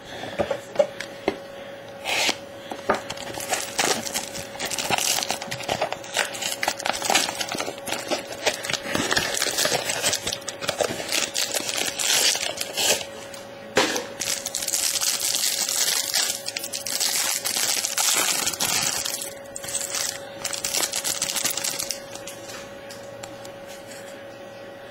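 Foil trading-card pack wrapper being handled and torn open, a dense run of crinkling and crackling that is busiest over several seconds past the middle.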